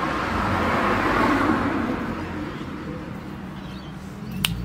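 A road vehicle passing by: a rush of noise that swells to a peak about a second in and then fades away.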